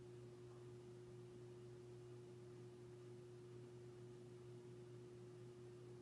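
S.M.C. Royal Flush 42-inch ceiling fan running on medium speed: a faint, steady hum with a slight bearing noise, from motor bearings of a kind that tend to wear out prematurely.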